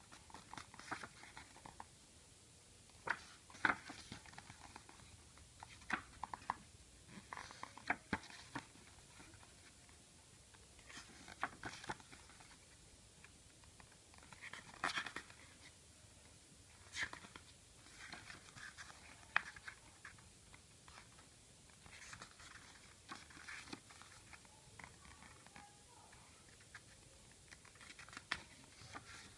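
Quiet, scattered rustling, taps and clicks of a CD album's packaging and booklet being handled and opened.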